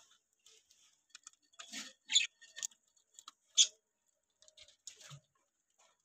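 Budgerigars feeding at a seed dish: a string of short, scattered chirps and pecking sounds, the loudest about two and three and a half seconds in.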